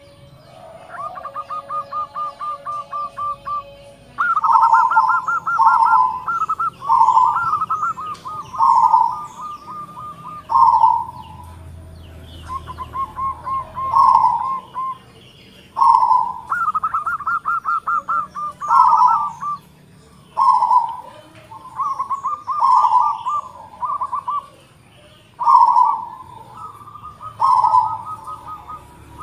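Zebra dove (perkutut) cooing. It repeats its song phrase every one and a half to two seconds: a quick stutter of notes, then a lower rolling coo.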